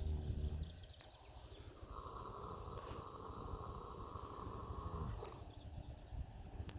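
A horse snoring in its sleep: slow breaths, with a low rough snore at the start and another about five seconds in.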